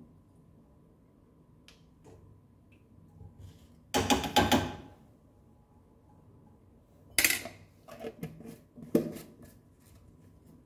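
Metal kitchen utensils being handled: a clattering rattle lasting about a second, then a sharp clink and a few lighter knocks a few seconds later.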